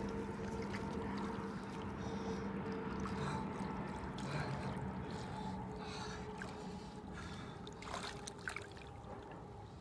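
Shallow river water sloshing and trickling around a lake sturgeon held by the tail in the shallows while it is revived for release, with a few small splashes near the end. A steady low hum runs underneath, fading after the first few seconds.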